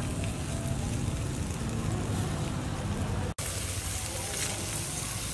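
Fish grilling over a charcoal fire: a steady sizzle and crackle over a low rumble, with a brief dropout about three seconds in.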